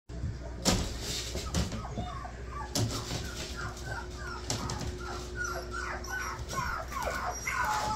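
A litter of collie puppies whining and yipping, many short high calls overlapping and growing busier toward the end. A few sharp knocks come in the first three seconds.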